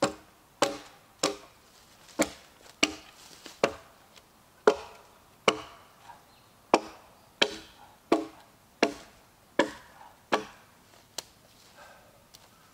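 An axe chopping branches off a felled log: about fifteen sharp wooden chops at a steady pace, a little more than one a second, stopping near the end.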